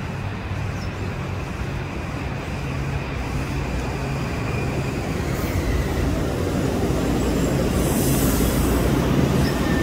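Metro-North M8 electric multiple-unit commuter train running in along the platform, its rumble growing louder as the cars pass close by.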